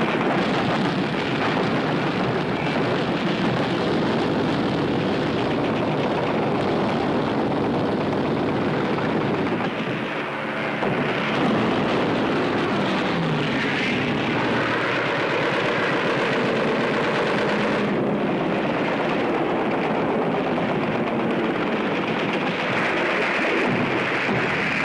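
Propeller aircraft engines running as a dense, continuous battle din on an old film soundtrack.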